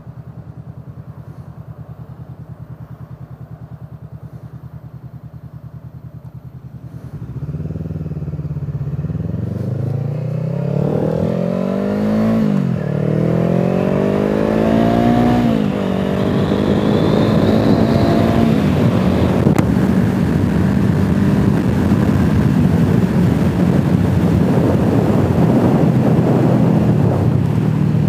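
Motorcycle engine idling, then pulling away about seven seconds in and accelerating through the gears: the engine note climbs and drops back at each of about three upshifts, then settles into steady cruising with wind noise on the helmet microphone building up.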